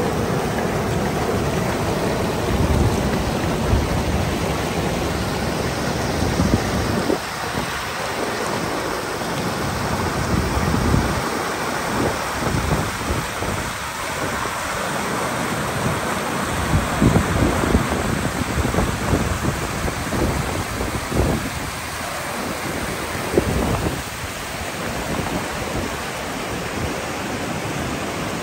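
Fast mountain river rushing over rocks: a steady, dense hiss of white water, with a low rumble that swells and fades unevenly.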